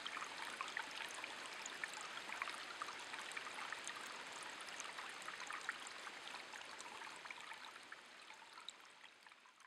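Shallow stream water trickling, with many small plinks and drips, fading out near the end.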